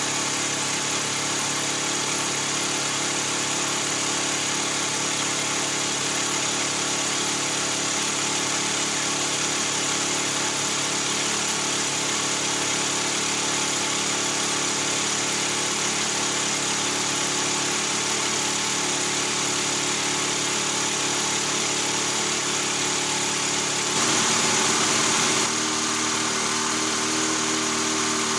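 Honda CB400D Super Hawk III's air-cooled parallel-twin engine idling steadily through an exhaust the owner calls nearly straight-piped. Near the end the engine speed rises briefly, then it settles back into a steady idle.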